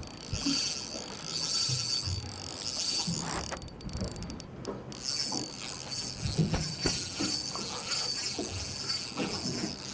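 Fishing reel ratcheting and buzzing in runs while a hooked fish is played on a hard-bent rod, the reel's drag set light so the fish can take line.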